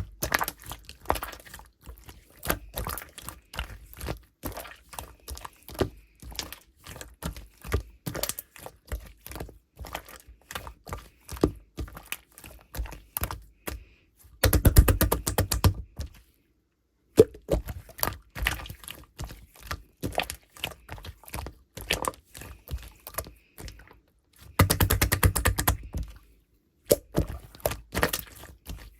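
Clear slime being squeezed, stretched and poked by hand, giving a steady stream of sticky clicks and small pops. Twice, about halfway and again near the end, it breaks into a louder, rapid run of crackling.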